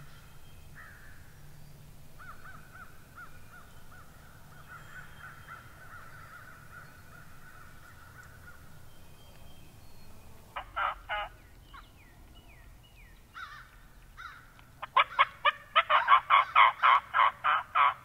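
Loud turkey calls: a short burst about ten and a half seconds in, then a long fast run of notes, about four a second, over the last three seconds. Before that, a bird trills steadily in the background.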